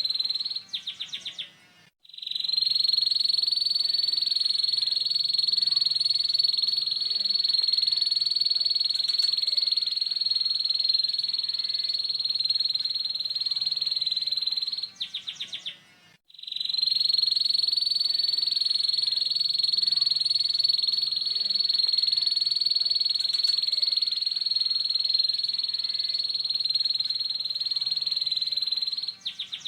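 Canary singing its harsh 'ngeriwik' song: a very fast, high rattling trill held for over ten seconds at a time. Each trill ends in a few separate notes and a short break. This happens twice, once near the start and again past the middle.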